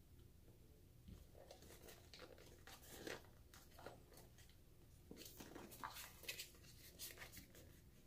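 Faint handling noises: small taps and rustles as brass spacers are set down and the black knife box is picked up and opened, busiest in the latter half.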